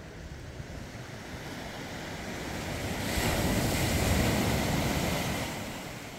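Sea surf washing below the cliffs, with wind on the microphone; the noise swells to a louder surge a little before halfway through and eases off again near the end.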